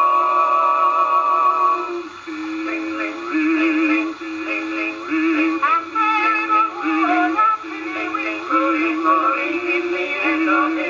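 Acoustic 1908 Victor record of a male vocal quartet singing in close harmony, played back on a Victrola VV-IV windup phonograph. A held chord ends about two seconds in, then the upper voices sing wavering lines over a bouncing bass part.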